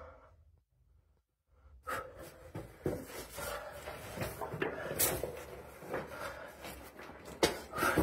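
Footsteps scuffing and knocking on the stony floor of a narrow rock tunnel, with irregular knocks and rustling. Nearly silent for about a second and a half shortly after the start, then the steps and knocks resume; the loudest knock comes near the end.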